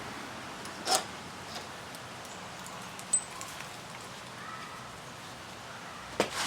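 A few light knocks and clicks from handling and positioning the slip-on exhaust pipe and its clamp: one about a second in, a short high tick about three seconds in, and two close together near the end.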